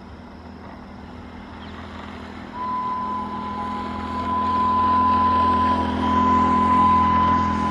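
WAP-5 electric locomotive approaching at full speed. Its horn sounds one long, steady note from about two and a half seconds in, over a low rumble that grows louder as the train nears.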